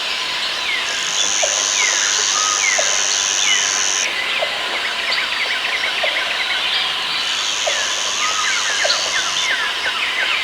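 Rainforest ambience: many birds calling with short, quick downward-sliding chirps and whistles, over a high, steady insect buzz that comes in about a second in, stops, and comes back for a couple of seconds near the end.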